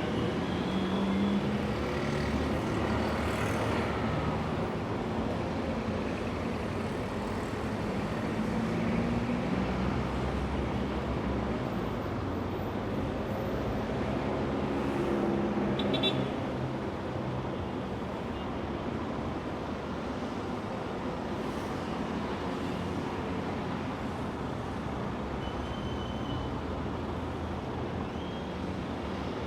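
City street traffic: a steady wash of passing cars and heavier vehicles with engine hum and tyre noise, with a brief high-pitched sound about halfway through. The traffic eases off slightly after that.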